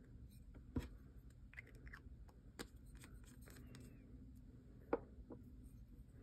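Quiet desk handling sounds: a few light taps or clicks, the sharpest about five seconds in, over faint rustling as a hand sets down a small ink sample vial and lays flat on a notebook page.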